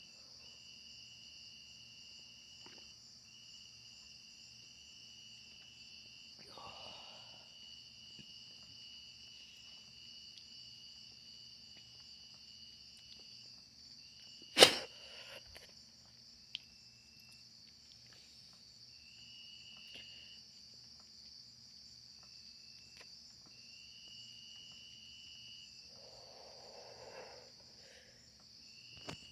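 Insect chorus: a steady high buzz, with a second, lower trill that starts and stops every few seconds. A single sharp click about halfway through is the loudest sound.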